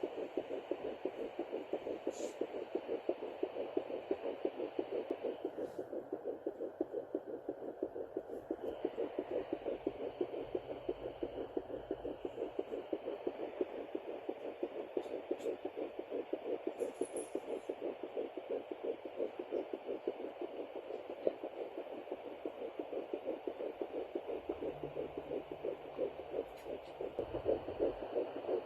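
Home fetal doppler picking up a fetal heartbeat at about 9–10 weeks of pregnancy: a rapid, even whooshing pulse over steady static hiss from the device's speaker.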